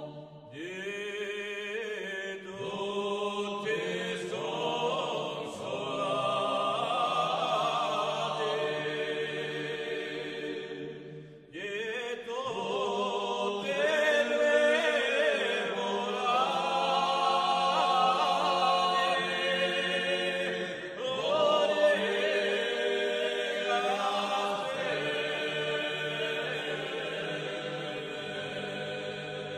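Background music of voices singing slow, held phrases in parts, with short breaks between phrases about eleven and twenty-one seconds in.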